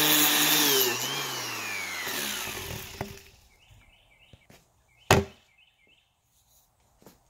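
DeWalt random orbit sander running on a rough-sawn cherry slab, then switched off and winding down over about two seconds, its whine falling in pitch. Then a few faint bird chirps and a single sharp knock about five seconds in.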